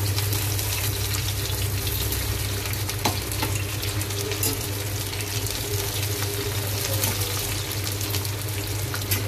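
Green capsicum pieces sizzling in hot oil in a steel kadai, with the light scrape and clicks of a steel spatula as they are stirred and lifted out. A steady low hum runs underneath.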